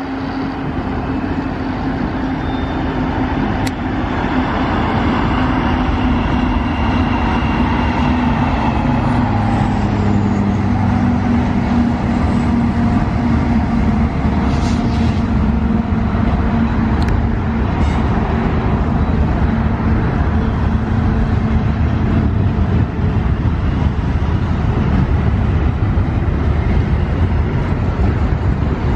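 A freight train passing. A Union Pacific diesel locomotive's engine drones steadily, growing louder over the first few seconds and fading in the last third. Steel wheels rumble on the rails throughout, with a few sharp clicks.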